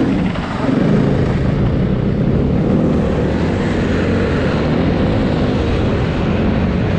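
Snowbike engine running under throttle, easing off briefly about half a second in and then pulling again.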